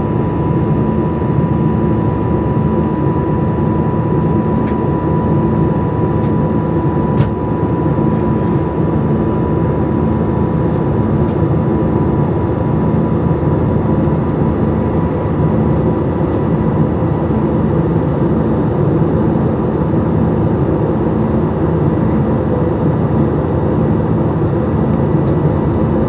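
Steady cabin noise of an Airbus A320neo airliner in flight: engine and airflow drone with a thin, steady high whine over it. A faint tick about 7 seconds in.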